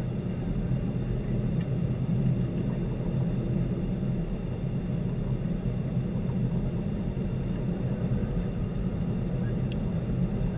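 Boeing 737-800 cabin noise on approach: its CFM56 turbofan engines and the airflow make a steady low rumble heard from inside the passenger cabin, with a few faint clicks near the end.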